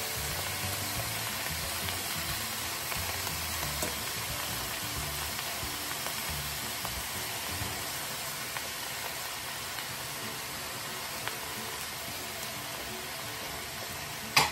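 Napa cabbage and broccoli sizzling steadily in hot oil in a stainless steel pot, with one sharp click near the end.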